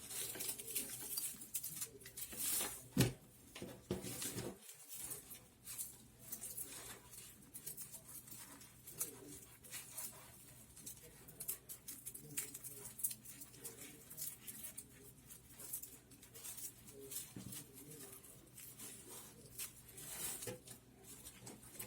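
Strips of dried palm frond rustling and crackling as they are handled and woven by hand: a long run of small, irregular crackles.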